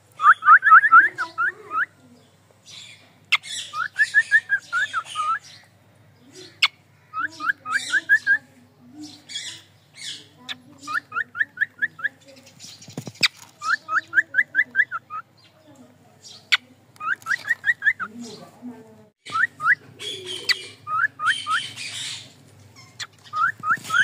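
Cockatiel chirping in quick runs of six to eight short rising notes, a run every two to three seconds, mixed with harsher, scratchy calls.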